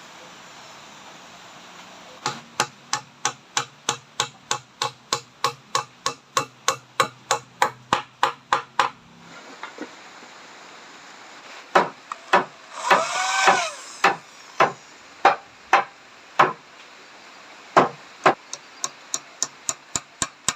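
Hammer striking nails into wood in a steady run of about three blows a second, then a pause, then more scattered blows that turn lighter and quicker near the end. A short rising-and-falling cry is heard partway through.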